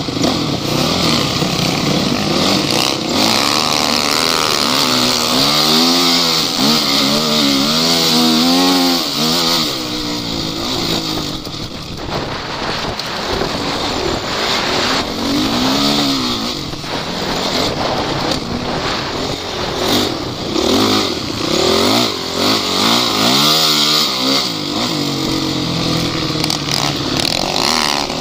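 Off-road vehicle engine revving up and down over and over, with the revs rising and falling most strongly about four to ten seconds in and again near the end.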